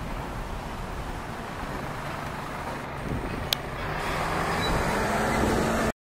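Road traffic noise, with a vehicle passing closer and growing louder over the last two seconds. A single sharp click comes about three and a half seconds in, and the sound cuts off suddenly near the end.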